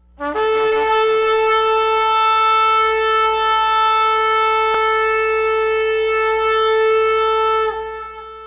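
Shofar (ram's horn) sounding one long blast: a short lower note jumps up into a steady held tone, which stops near the end and leaves a fading echo.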